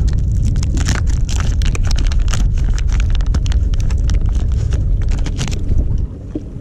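Wind buffeting the microphone on an open boat: a steady low rumble with irregular crackles and clicks over it, easing off briefly about six seconds in.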